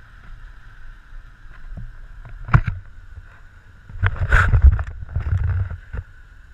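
Wind and open-sea water noise on the deck of a small offshore fishing boat, a steady rumble with a faint steady whine. A sharp knock comes about two and a half seconds in, and a louder rush of noise follows about four seconds in, lasting around two seconds.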